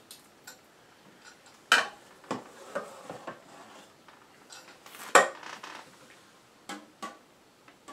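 A measuring cup knocking and scraping against stainless steel pots while thick apple puree is scooped out of one and poured into another: several sharp clanks, the loudest about five seconds in, with softer scraping between.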